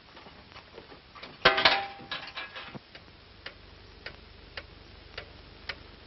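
Steady ticking, about two ticks a second, broken about a second and a half in by a loud, ringing clatter of two or three blows.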